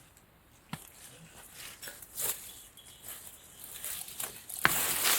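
Rustling and crackling of lesser galangal stalks and soil as the clump is handled and pulled up to get at its rhizomes. Scattered soft clicks and rustles at first, then a sudden louder crunching and rustling near the end.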